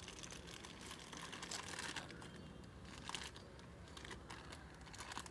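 Clear plastic bag crinkling and rustling in the hands as it is tied around a plant stem and opened out for air layering: faint, irregular crackles.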